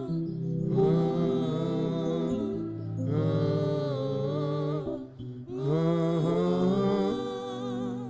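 A man singing or humming a slow worship melody into a microphone in long held phrases with short breaks, over sustained low instrumental chords.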